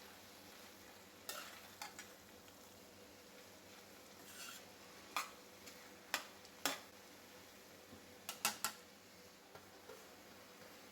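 Metal spoon stirring in a cooking pan, knocking against the pan with irregular sharp clinks, a quick cluster of three near the end, over a faint steady hiss of cooking.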